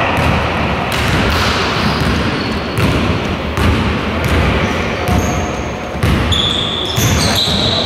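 Basketball bouncing on a wooden gym floor as it is dribbled up the court, with sneakers squeaking on the court in short high squeals near the end.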